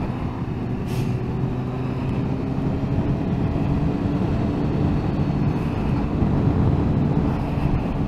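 Inline-four sport motorcycle engine running steadily at low revs while riding, with road and wind noise.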